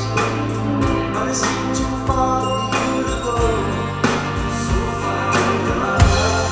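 Music: a full band mix with a steady beat, singing, and a sustained bass line.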